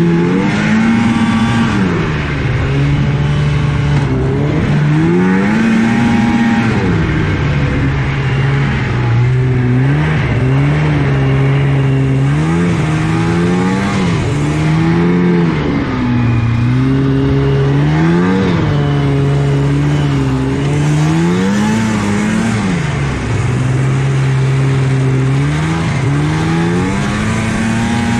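1983 Yamaha SS 440 snowmobile's two-stroke engine heard from on board at race pace, its pitch climbing and dropping again and again every few seconds as the throttle is squeezed and let off around the circuit.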